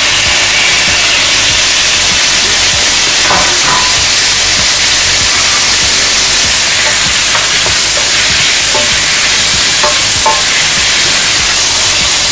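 Food sizzling in a frying pan: a steady hiss, with a few light clicks.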